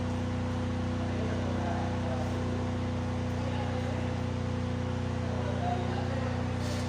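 MAG welding machine running: a steady hum with a continuous hiss over it that does not change.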